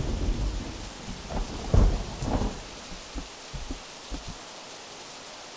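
Heavy rain falling steadily, with rolling thunder rumbling at the start and again about two seconds in, dying away after about four seconds.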